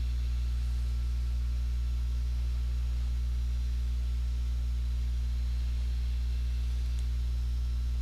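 Steady low electrical hum with faint hiss, unchanging throughout.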